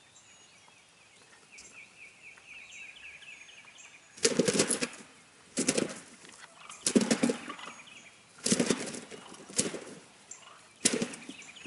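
Wild turkey gobblers beating their wings in six hard bouts, starting about four seconds in, as they flog a strutting tom decoy. Before that, a small songbird chirps a rapid run of high notes.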